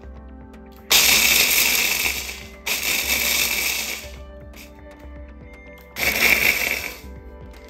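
Electric mini chopper pulsed three times, its blade grinding and rattling hard pretzel sticks down into crumbs. Two long pulses come back to back starting about a second in, and a shorter one follows near the end.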